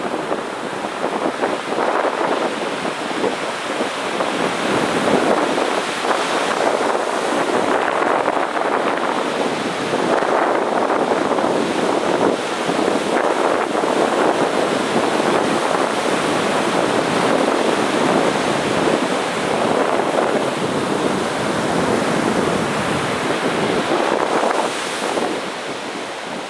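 Heavy sea surf breaking on a beach in a continuous wash, swelling and ebbing every few seconds.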